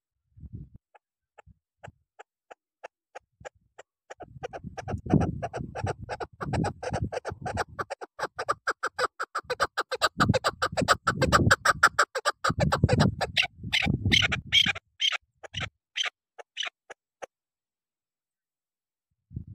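Caged decoy chukar partridge (chakor) calling: a long series of short clucking notes, a few a second at first, then faster and louder from about four seconds in, dying away a couple of seconds before the end.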